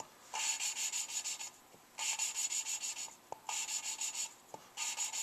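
A valve being hand-lapped into its seat in a Suzuki G16A 16-valve aluminium cylinder head: a suction-cup lapping stick spun back and forth between the palms grinds the valve against the seat with grinding compound. There are four grinding strokes of about a second each with short pauses between them. The heavy grind at the start of each turn is pretty much gone, the sign that the valve is seated.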